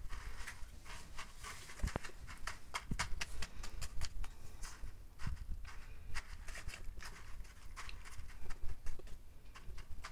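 Fingers stirring and pressing cat grass seeds into a tray of loose granular substrate: a gritty crunching rustle made of many small, irregular clicks.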